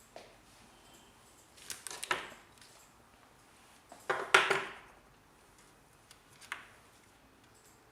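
Handling noise: a short cluster of clicks and rustles about two seconds in, a louder one about four seconds in, and a single small click near the end.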